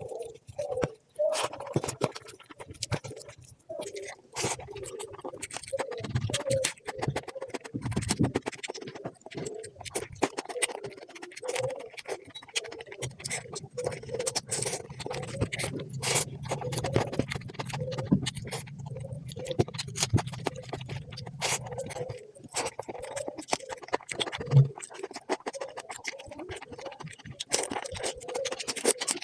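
Close-miked eating: wet chewing and smacking with many quick, irregular clicks and crackles.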